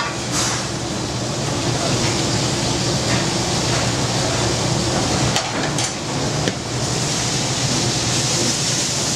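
Steady noise of commercial gas ranges and a kitchen extraction hood, with a pan of shrimp sauce sizzling over a high flame. A couple of sharp clicks of metal utensils against pans come about five and a half and six and a half seconds in.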